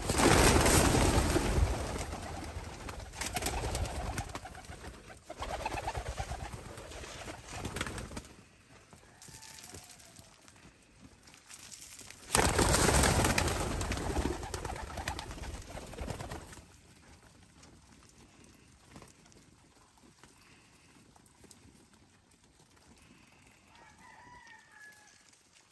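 A flock of pigeons cooing. In the first half there are two long bursts of loud rushing noise, the second starting about twelve seconds in, and after that it goes quieter with a few faint short calls.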